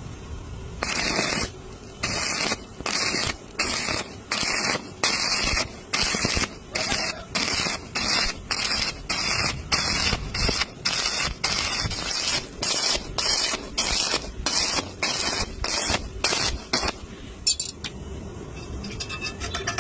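Electric welding arc sizzling in short, evenly spaced bursts, struck and broken about once or twice a second: an on-off stitch or tack weld being laid in pulses.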